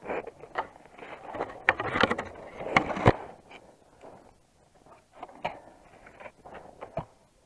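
Hunting skis sliding and crunching through snow in quick strides, with a sharp knock about three seconds in. After that the movement dies down to scattered soft crunches.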